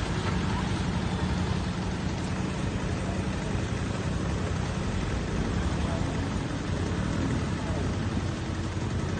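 Motor scooter engine running at low speed over a rough, muddy dirt road, mixed with steady road and wind noise. A low engine hum stands out for the first couple of seconds, then sinks into the noise.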